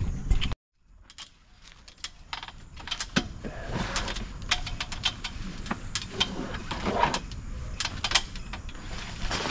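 Metal awning rods and canvas of a rooftop tent being handled and fitted: irregular clicks and light rattles with fabric rustling, starting after a brief silence and growing busier.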